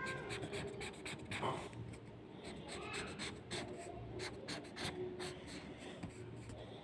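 Black marker pen scratching over paper in many short back-and-forth strokes, going over drawn lines again to thicken them.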